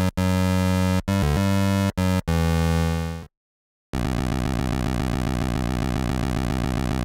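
Synthesized electronic sound effects: a run of loud buzzy held tones broken by brief cut-offs, then after a short pause a steady buzzing tone with a fast even pulse for about four seconds that fades out near the end.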